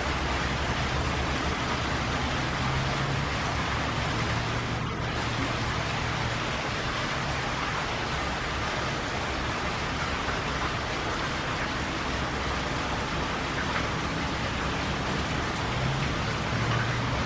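Rainwater gushing from a downspout onto asphalt roof shingles in heavy rain: a steady rushing, splashing noise.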